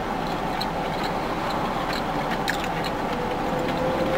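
Steady background hum with a few faint, sparse clicks of a utensil in a takeout container as a bite of dirty rice is taken.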